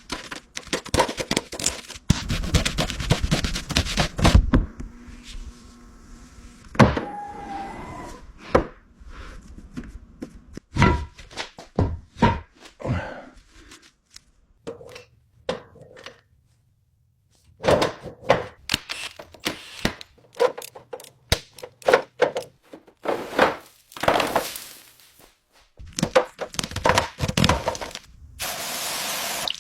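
A string of workshop knocks, thunks and clicks from bodywork repair, uneven and with short pauses. A steady spray hiss comes in near the end.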